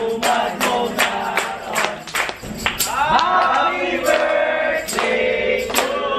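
A group of voices singing a birthday song together, with hand claps keeping a steady beat of about three claps a second.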